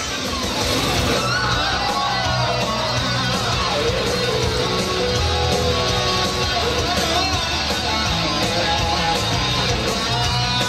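Loud rock music led by electric guitar over a steady beat, with gliding, bending guitar lines.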